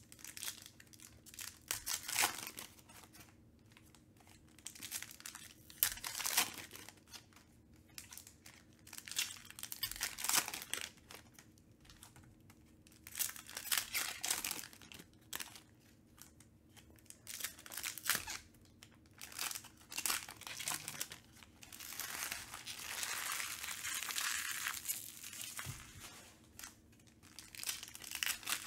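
Foil wrappers of 2021 Panini Prizm UFC retail card packs crinkling and tearing as they are opened by hand. The sound comes in irregular bursts, with a longer stretch of crinkling a little past two-thirds of the way through, and the cards rustling as they are handled.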